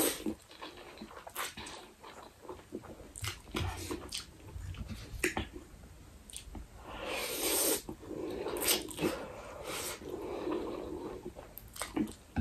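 Close-up eating sounds: a person slurping and chewing spicy instant ramen noodles, with wet mouth clicks and a few longer noisy sucks and breaths.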